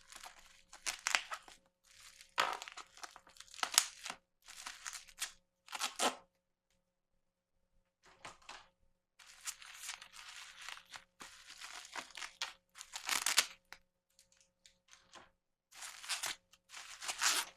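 Sticky tape being ripped and peeled off, with packaging crinkling, in a run of short bursts that stop for about a second and a half in the middle.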